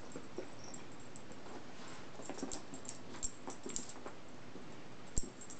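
Toy poodle puppy making small play noises, among scattered light clicks and taps, with one sharp knock about five seconds in.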